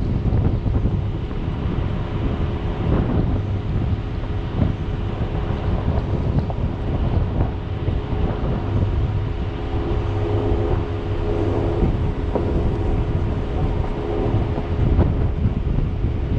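Jeep driving over a rough gravel desert trail: the engine runs steadily under the low rumble of wind on the microphone, with scattered knocks and rattles as the vehicle goes over stones and bumps.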